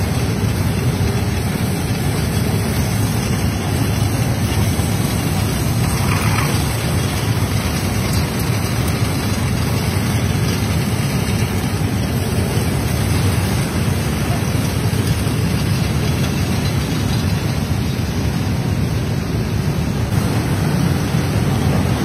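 Glass factory machinery running with a steady low drone that does not change.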